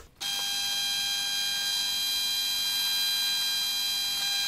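Belt-driven bench drill press running steadily with a high whine as a twist drill bores a pilot hole in steel plate; it starts a fraction of a second in and cuts off suddenly near the end.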